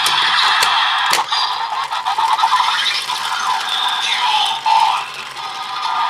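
Plastic toy belt (DX Desire Driver) with a Raise Buckle clicked into it: three sharp plastic clicks in the first second or so, then its tinny electronic standby music and voice sounds through its small speaker.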